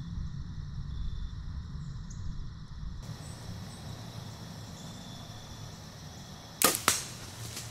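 A bow fired at a doe: a sharp crack as the string is released, then about a quarter second later a second sharp smack as the arrow strikes the deer at about 20 yards.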